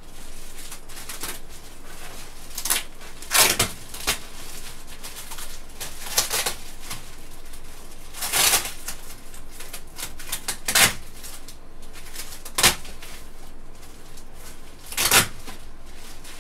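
Clear plastic wrap being pulled and bunched up, rustling and crinkling in irregular short bursts, about eight of them, with a sharp snap a little before the end.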